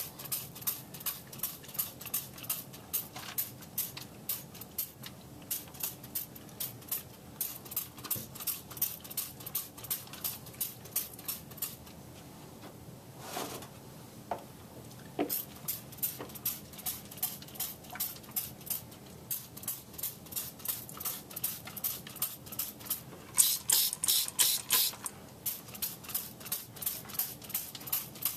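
Hand-held trigger spray bottle squirting diluted acrylic stain onto plaster rock castings: quick repeated pumps of hissing spray, about three a second. They pause for a few seconds around the middle, and a louder, faster run of squirts comes near the end.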